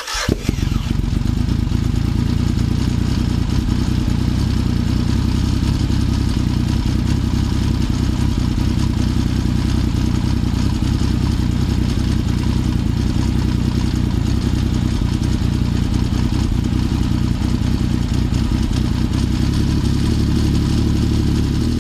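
Engine running loudly at a steady speed with a low, even drone, cutting in abruptly at the start.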